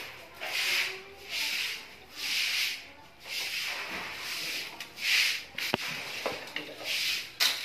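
Copper winding wire being worked and pulled loose from an old welding machine's transformer coil: rhythmic rasping scrapes about once a second, with two sharp clicks in the second half.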